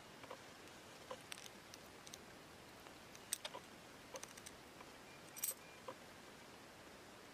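Faint, scattered metallic clicks and ticks of small reel parts being handled: the brass main gear and drag clicker washer of an Abu Garcia Ambassador 4500C baitcasting reel, turned over in the fingers. Two sharper clicks stand out, one about a third of the way in and one near three quarters.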